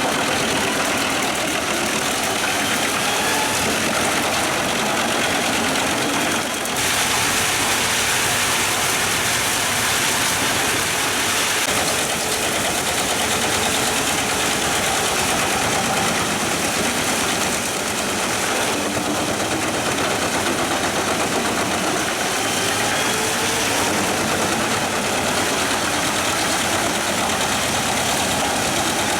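Pezzolato PTH 1400/1000 truck-mounted drum wood chipper running, driven by its 730 hp Scania truck engine: a loud, steady, dense noise with faint wavering whines through it.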